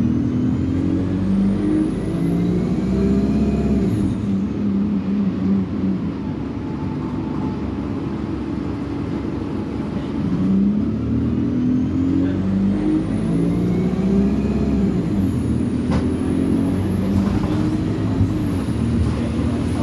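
Alexander Dennis Enviro200 single-deck bus heard from inside the saloon, its engine revving up in steps through the gears of the Voith automatic gearbox as it accelerates, with a high whine rising alongside: once at the start and again from about ten seconds in, with steadier running in between. A single sharp click sounds about sixteen seconds in.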